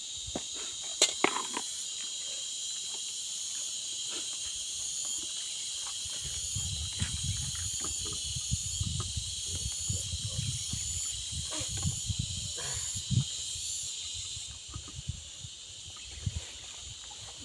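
Steady high-pitched insect chorus buzzing, with scattered clicks and knocks of plates and food being handled, loudest about a second in, and low rumbling from about six to fourteen seconds in.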